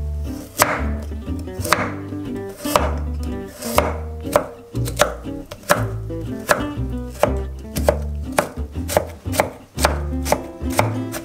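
A wide-bladed kitchen knife chopping a carrot on an end-grain wooden cutting board: sharp chops about one a second at first, quickening to about two a second in the second half as the carrot is diced.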